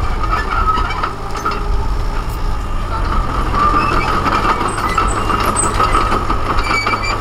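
Small crawler bulldozer's diesel engine running under load as it tracks forward pushing earth with its blade, with a steady high squeal over the engine.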